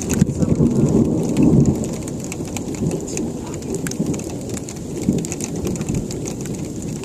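Thunder rumbling during a winter freezing-rain storm: a deep roll that is loudest in the first couple of seconds and then goes on more quietly. Light ticking of freezing rain sounds over it.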